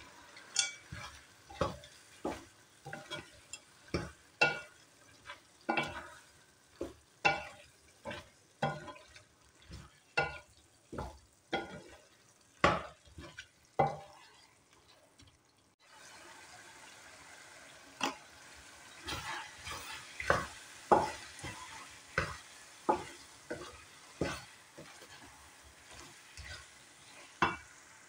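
A wooden spatula stirring minced meat, diced potatoes and peas in a metal pan: repeated scrapes and knocks against the pan, one or two a second, with a short pause about halfway, over a faint frying sizzle.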